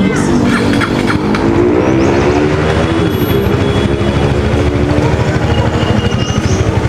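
Single-cylinder engine of a Bajaj Avenger 220 Cruise running extremely loud through an aftermarket SC Project exhaust on a bend pipe. The revs rise and fall about two to three seconds in, and the individual firing pulses become more distinct near the end.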